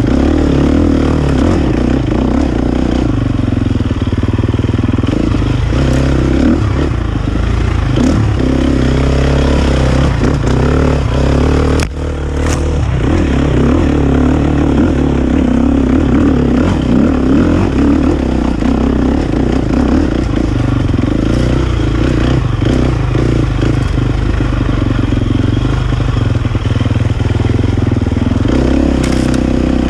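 Dirt bike engine running under load on rocky single track, the revs rising and falling, with occasional clatter. The engine note drops off briefly about twelve seconds in.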